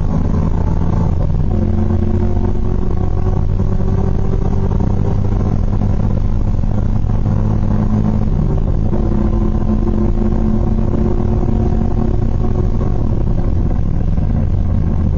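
LS V8 engine of an R32 Skyline GT-R race car at full throttle, heard from inside the cockpit. It upshifts twice, about a second and a half in and again around eight and a half seconds in. Near the end the throttle lifts as braking begins.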